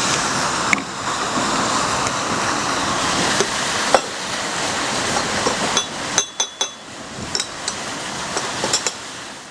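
A teaspoon clinking against a porcelain teacup while stirring: several short, ringing clinks, clustered about six seconds in and again near the end. Under the first part runs a steady rushing noise that drops away about six seconds in.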